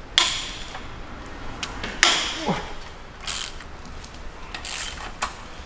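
Cylinder head bolts on a BMW N63TU 4.4 V8 being broken loose by hand with a wrench: four sharp cracks, each followed by a brief scrape, with a short creak in the middle.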